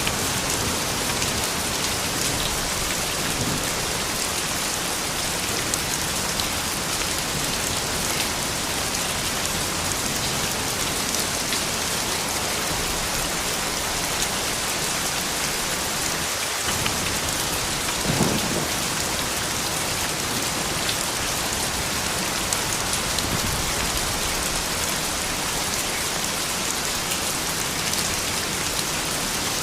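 Steady soft rain falling, an even hiss dense with fine drop patter. About two-thirds of the way in, a single brief louder sound rises above it.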